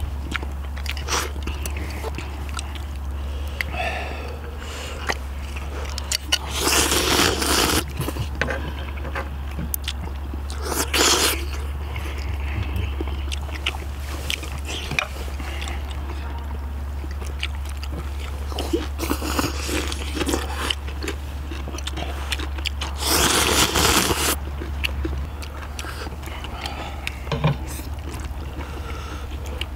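People eating seafood ramyeon: slurping instant noodles and chewing octopus and shellfish, with three long loud slurps about seven, eleven and twenty-three seconds in, and small clicks of utensils. A steady low hum runs underneath.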